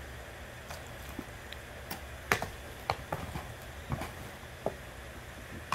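Irregular light clicks and taps, about fifteen, the loudest a little over two seconds in, over a steady low hum.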